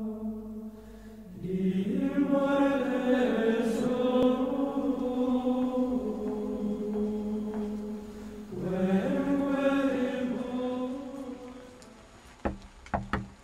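Choral chant, voices holding long notes in slow phrases, fading out about twelve seconds in. Near the end, three knocks on a door.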